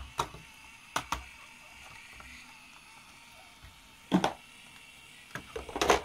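Hard plastic Playmobil toy pieces clicking and knocking as they are handled and fitted onto a toy boat: a few sharp clicks about a second in, another single knock about four seconds in, and a rattling cluster near the end.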